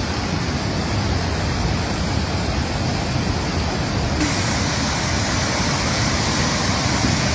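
Steady rushing roar of brown flash-flood water pouring across fields. About four seconds in it turns brighter and more hissing.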